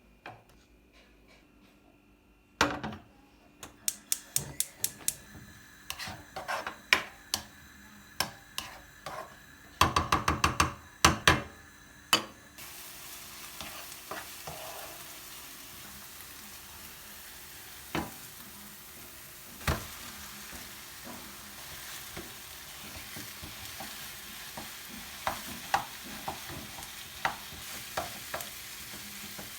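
A run of sharp clicks and knocks, densest about a third of the way in. About halfway through, food starts sizzling steadily in a frying pan, with a few scattered clicks over it.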